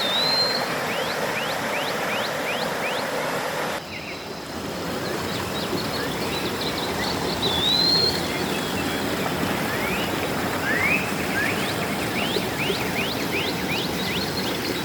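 Stream water rushing steadily, with birds calling over it: runs of short, quick high notes and twice a longer warbling call. The water sound changes abruptly about four seconds in.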